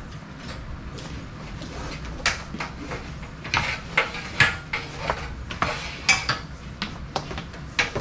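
Irregular clicks, rattles and scrapes of electrical wire being pulled and tucked along a wall top, starting about two seconds in and busiest around the middle, over a steady low hum.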